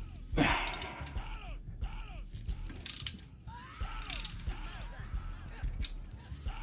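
Hand ratchet clicking in short repeated runs as it is swung back and forth, breaking loose the connecting-rod cap bolts on an engine's bottom end. There is a louder burst about half a second in.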